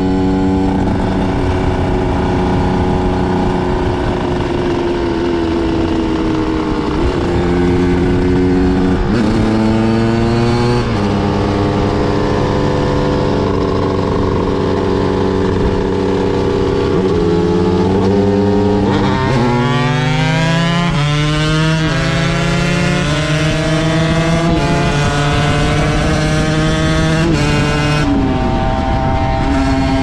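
2003 Aprilia MX125 supermoto's single-cylinder two-stroke engine under way, its revs climbing and dropping in steps as it changes gear. Past the halfway mark it pulls hard through the gears, and the revs fall away near the end.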